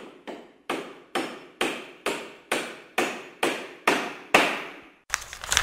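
Hammer blows struck at an even pace of about two a second, each ringing briefly, stopping about four and a half seconds in; a short stretch of fainter noise with small clicks follows.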